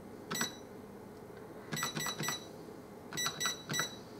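Olivetti ECR 7700 Plus cash register beeping at each key press while letters are typed in program mode: seven short high beeps, one near the start, then two quick runs of three as keys are tapped repeatedly to step through the letters on them.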